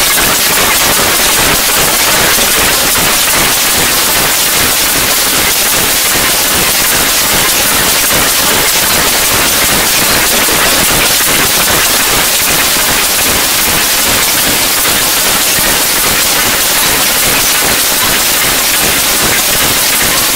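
Loud, steady hiss of noise like static or heavy rain, unchanging throughout, with no music or voice in it.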